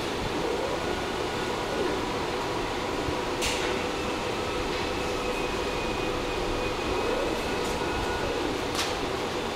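Steady fan-like whirring noise with faint steady whines, broken by two short clicks, one about three and a half seconds in and one near the end.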